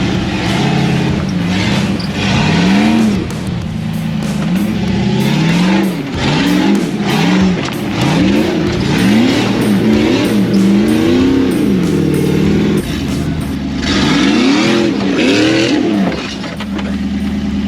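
An off-road vehicle's engine being revved up and down again and again, its pitch rising and falling about once a second, with bursts of hiss from the tyres or loose dirt over it.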